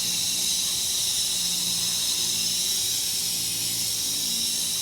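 Steady hiss, strongest in the high range, over a faint low steady hum from a semi-truck standing by.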